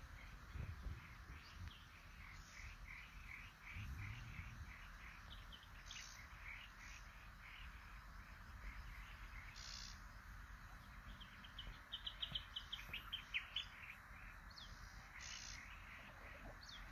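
Birds calling around a pond, faint. A regular run of short chirps repeats about three times a second, other calls come now and then, and a quick series of louder notes comes about twelve seconds in.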